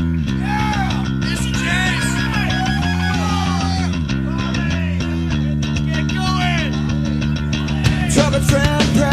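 Rock music led by guitar over bass guitar, with sharp hits coming in about eight seconds in.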